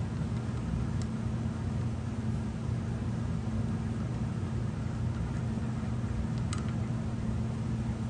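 Steady hum of running workshop machinery, with a couple of faint light metallic clicks as a hex nut is handled and tried on a freshly cut lathe thread.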